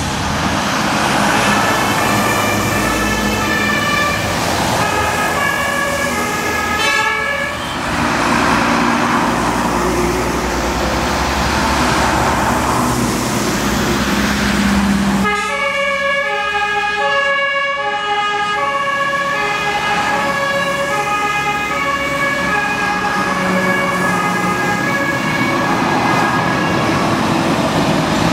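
German fire engines' two-tone sirens (Martinshorn) sounding as a convoy of fire trucks drives past, several horns overlapping at different pitches and loudest from about halfway in. Heavy truck engines and tyre noise on the wet road swell as each vehicle passes close.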